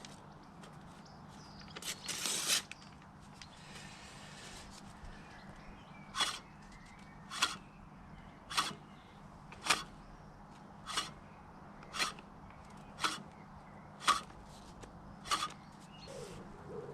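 A freshly sharpened Allett ten-blade cylinder mower reel, turned slowly, snips paper against the bottom blade. After a rustle of paper about two seconds in, there are nine crisp snips about once a second. The clean cuts show the blades cutting right across, i.e. sharp.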